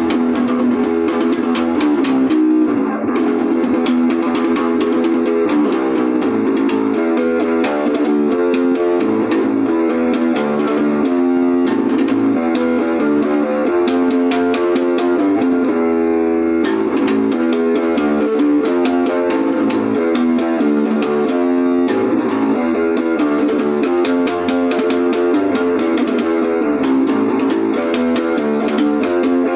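Instrumental guitar music: a steady stream of quick plucked notes with no singing.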